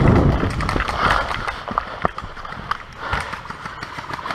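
Footsteps and rustling gear of a person moving, with rumbling handling noise at first and a few sharp clicks or knocks in the middle.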